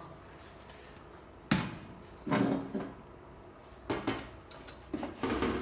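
Metal clunks and clatters from handling the sheet-metal case of an HP ProLiant DL380 Gen8 server, about seven separate knocks, some briefly ringing.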